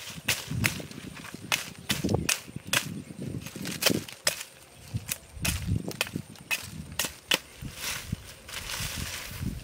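Irregular sharp clicks and knocks, one or two a second, with duller low thuds between them and a short hiss near the end.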